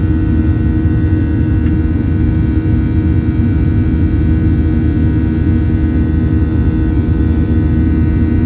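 Steady jet engine noise inside the cabin of a Boeing 737-800: a loud rumble with an even hum of several steady tones from its CFM56 turbofans.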